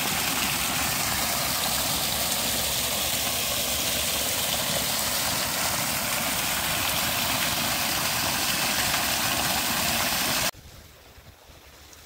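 Water gushing from a spout and splashing down over rocks: a steady rushing noise that cuts off abruptly about ten and a half seconds in, leaving a much quieter background.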